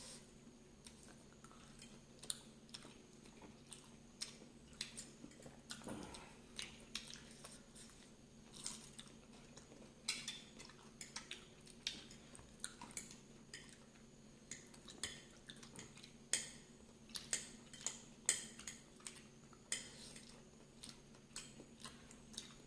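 Close-up chewing and biting of spicy food, raw green chillies and noodles: a run of irregular short clicks, smacks and crunches, some louder than others.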